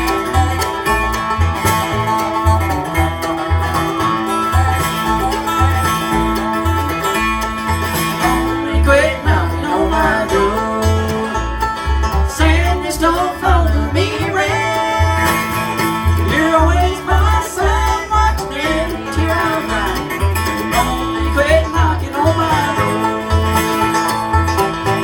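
Bluegrass band playing the instrumental opening of a song, with banjo, mandolin, dobro, guitar and bass, the bass notes on a steady beat.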